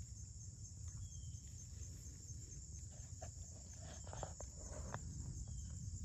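A steady, high-pitched insect chorus of crickets, over a low outdoor rumble, with a few soft ticks and scrapes from the muddy gravel about halfway through.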